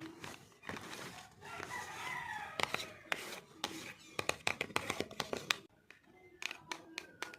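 Crisp clicks, taps and rustles of makeup packaging being handled and opened, a dense run of them in the middle and a few more near the end. Before the clicks, a long wavering animal call sounds in the background.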